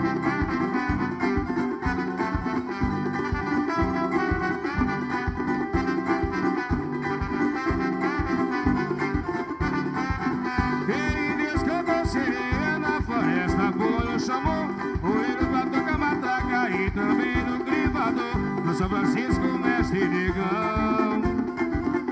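Live band music led by drums: a steady, quick drum beat under melodic instrument lines, with no sung lyrics.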